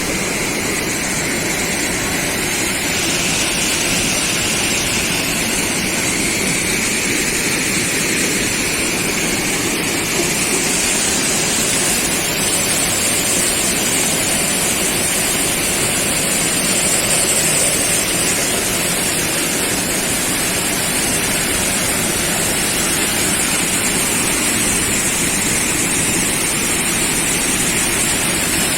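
Steady, loud rush of falling water from a spring's cascades.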